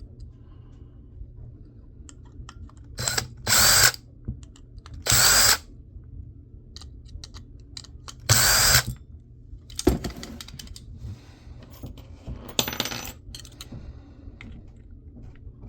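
Cordless power driver run in four short bursts, a faint whine rising in some of them, backing screws out of a laptop hard drive. Small metal clicks and rattles follow as the parts are handled.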